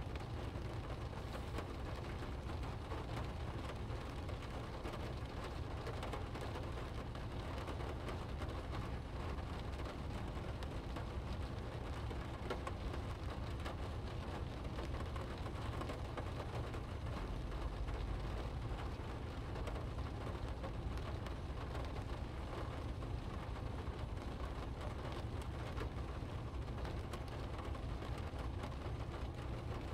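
Rain hitting a car's windshield and roof, heard from inside the cabin as a steady patter of fine ticks over the low, even rumble of the car driving on a wet road.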